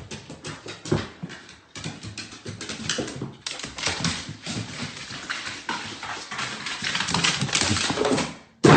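A dog moving about, its claws tapping and scrabbling irregularly on a hard surface. A sudden loud noise comes in right at the end.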